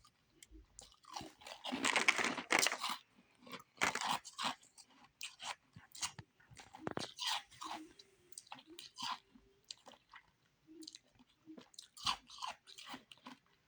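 Close-up crunching of refrozen powdery ice being bitten and chewed, a dense run of loud crunches about two seconds in, then slower, spaced chewing crunches.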